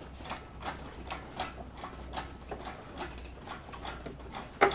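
Steady light mechanical ticking, about three ticks a second, with one sharper, louder click near the end.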